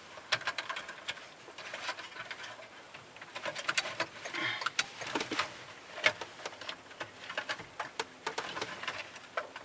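Plastic wiring connectors and harness being handled and pushed into the back of a Porsche PCM head unit: scattered sharp plastic clicks and light rattles with some rustling of the wiring.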